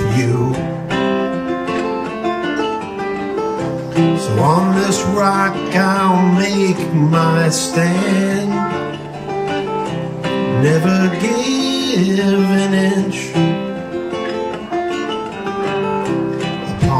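A man singing a song to his own strummed acoustic guitar, with long held notes and a few sliding ones.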